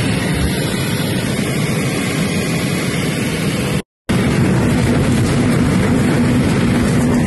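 Steady engine and airflow noise inside the cabin of an amphibious firefighting aircraft, first in flight and then skimming the sea surface to scoop water. It cuts out for a split second a little before halfway. After that a steady low hum runs under the noise.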